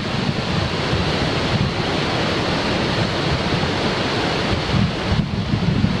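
Steady rush of a waterfall and its river water, with wind buffeting the microphone in an uneven low rumble.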